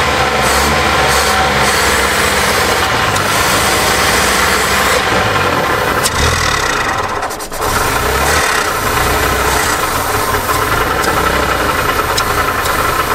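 1978 Datsun engine running, its throttle worked by hand at the carburetor; the engine sound dips briefly about seven and a half seconds in, then picks up again.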